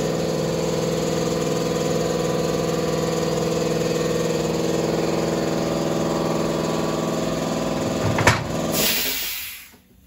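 Air compressor running steadily with a droning hum, then shutting off near the end: a knock about eight seconds in, then a short hiss of air as the motor winds down and stops, typical of a compressor reaching its cut-out pressure.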